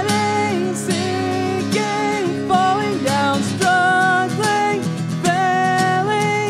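A woman singing long held notes over a strummed acoustic guitar.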